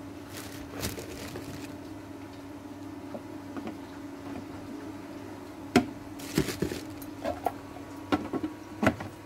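Plastic clicks and knocks from a food processor's bowl, lid and pusher being handled and fitted, over a steady low hum. The knocks come in a cluster during the second half.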